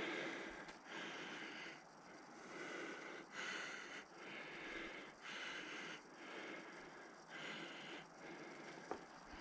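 A man breathing heavily and fast, about one breath a second, winded from climbing an uphill trail.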